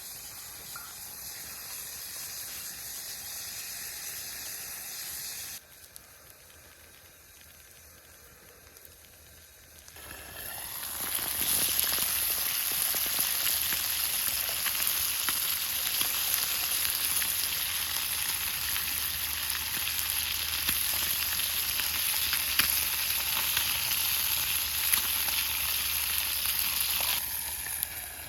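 Fish frying over a campfire, a dense sizzle with scattered pops, much louder from about ten seconds in and stopping abruptly near the end.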